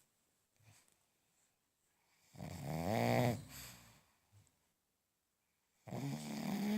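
Snoring: two snores, the first about two and a half seconds in, lasting over a second, and a second one starting near the end.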